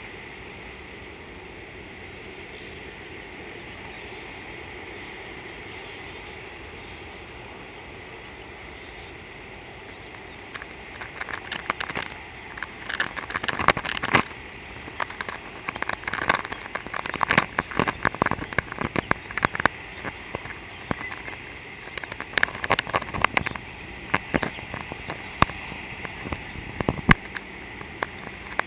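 Steady high-pitched drone with irregular crackling clicks and taps starting about ten seconds in; the clicks are the loudest sound.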